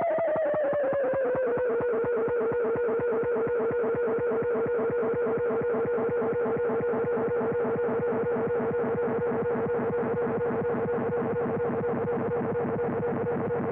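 Altai EC-500 bucket-brigade (BBD) analog delay self-oscillating, its feedback running away into a pitched electronic tone. The tone slides down in pitch over the first couple of seconds, then holds steady with a rapid, even pulsing from the repeating echoes.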